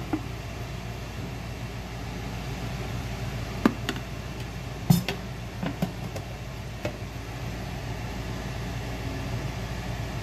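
Steady mechanical hum with a faint hiss, broken by a few sharp clicks between about four and seven seconds in, while coconut oil heats in a non-stick frying pan.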